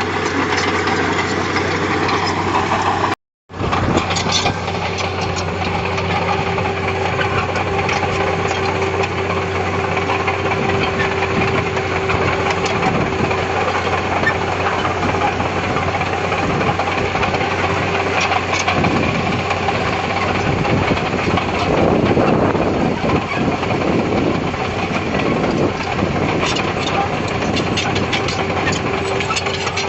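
Heavy-equipment diesel engine running steadily, cutting out to silence for a moment about three seconds in, then growing rougher and louder around the twenty-second mark.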